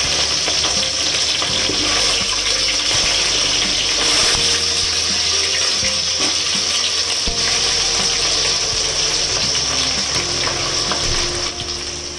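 Green chillies and curry leaves sizzling in hot oil in a pan: a steady hiss that softens a little near the end.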